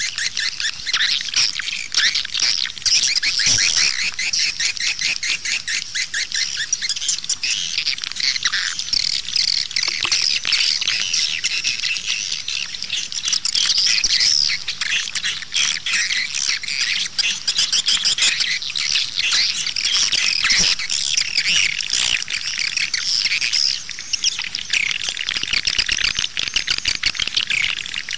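Swiftlet lure call: a dense, unbroken chorus of high, rapid swiftlet chirps and twitters. This is the 'outside' call played at swiftlet nest houses to draw birds in.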